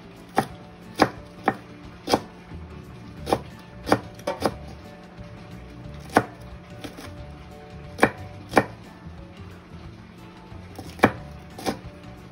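Chef's knife slicing green chili peppers on a wooden cutting board: sharp knocks of the blade striking the board, unevenly spaced at roughly one a second.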